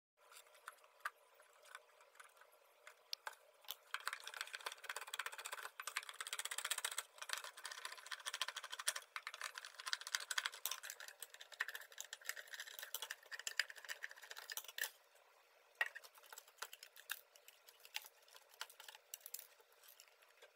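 Air-conditioner condensate drain pump running with an abnormal rattling, rapid clicking noise, louder through the middle of the stretch.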